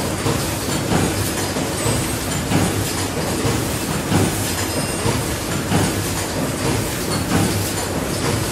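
Several automatic paper plate forming machines running together: a steady mechanical clatter with a louder beat about every one and a half seconds as the presses cycle.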